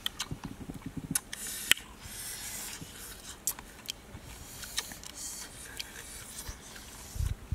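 Close-miked eating sounds: wet chewing and lip smacks with irregular sharp clicks, as pieces of cooked snake are picked from a plate by hand and eaten.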